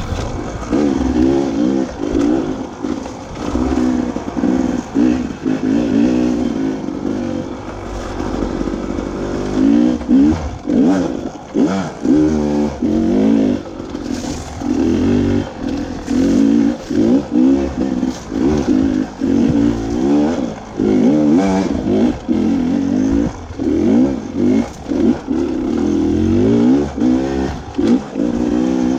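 Beta 300RR two-stroke dirt bike engine revving up and falling back over and over, in short surges with brief dips between them as the throttle is opened and closed.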